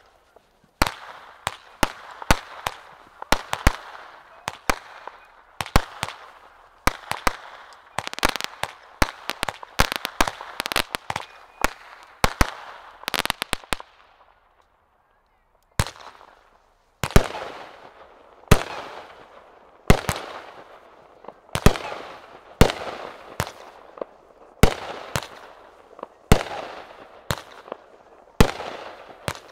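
Two consumer firework cakes firing. The Legit cake sends off a dense run of shots and crackling breaks for about fourteen seconds, densest just before it stops. After a second or two of silence, the Strong Man cake fires about one and a half shots a second, each break trailing off in crackle.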